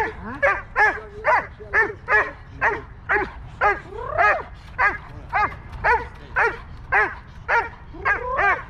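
Brown female Dobermann barking in a steady run, about two barks a second, with a few barks sliding up into whines. She is held on a leash and barking in drive at the helper during Schutzhund protection work.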